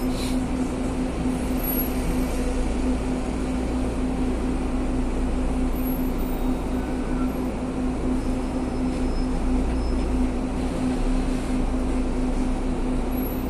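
City bus engine running at low speed in stop-and-go traffic, heard from inside the bus cabin: a steady low rumble with a constant hum.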